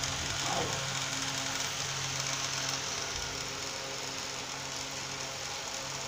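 Steady road traffic noise from a nearby highway: an even hiss with a low engine hum running under it.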